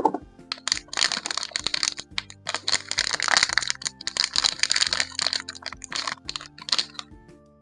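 Plastic toy packaging crinkling and crackling in the hands as it is opened: a dense run of rapid crackles and clicks lasting about six seconds, over soft background music.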